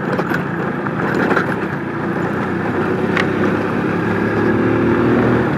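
Motorcycle engine running as the bike is ridden standing up over an off-road dirt section, mixed with rushing noise. The engine's hum comes through more clearly in the second half, and there is one sharp tick about three seconds in.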